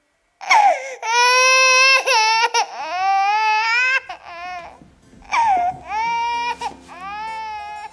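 A baby crying: a series of long, loud wails with short catches of breath between them. Soft music comes in under the last cries.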